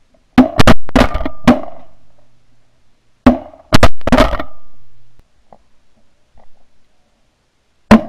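Shotgun blasts picked up by a gun-mounted camera, close and very loud, in two quick volleys of several shots each, the first about a third of a second in and the second a little over three seconds in. Each volley trails off over a second or so.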